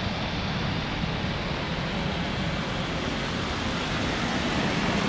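Boeing 777 jet engines during a landing: a steady rushing noise with no breaks, and a faint high whine that fades out about a second in.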